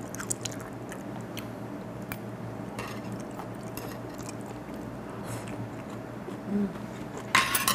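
A person chewing a mouthful of raw fish: soft, quiet chewing with a few faint clicks. A short hummed 'mm' comes near the end, then a brief louder rush of noise just before it ends.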